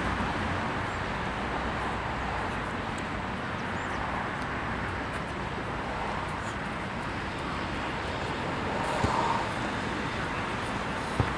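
Steady outdoor background noise with the single dull thud of a futsal ball being kicked about nine seconds in, and a sharper knock right at the end.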